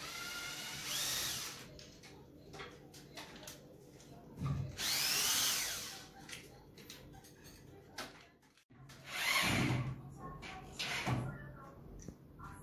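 Handheld power drill run overhead in several short bursts, its motor whine rising as it speeds up at each start, with small knocks and clicks between runs.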